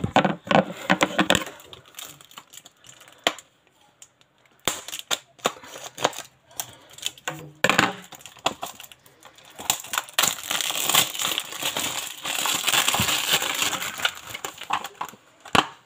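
Close handling noise: scattered knocks and clicks as things are picked up and set down near the phone's microphone. From about ten seconds in comes a few seconds of dense crackly rustling, like packaging being crumpled.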